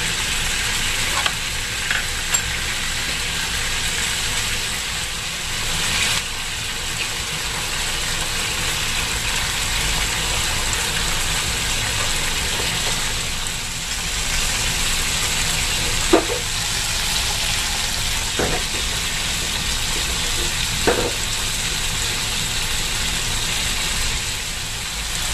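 Chicken wings sizzling in hot oil in a non-stick frying pan with ginger slices and shallots: a steady frying hiss, with a few short sharp clicks scattered through it.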